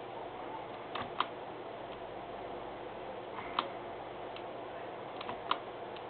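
Short, sharp clicks, five in all, some in close pairs, over a steady faint room hiss. They are button clicks advancing presentation slides.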